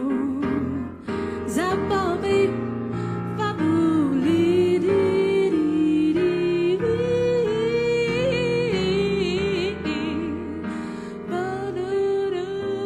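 Slow jazz music: a lead melody line that slides and wavers with vibrato, over sustained accompaniment.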